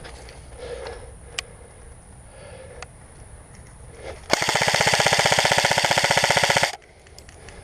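Electric airsoft gun firing one full-auto burst of about two and a half seconds, a fast, even stream of shots from the gearbox cycling, stopping sharply. A few faint sharp clicks come before it.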